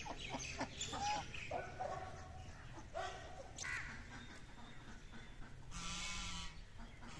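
Domestic geese and ducks calling: a quick run of short quacks and honks, then a few scattered calls and one longer call about six seconds in.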